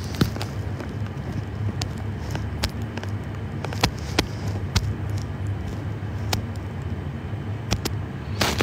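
Steady low mechanical hum, with scattered small clicks and ticks.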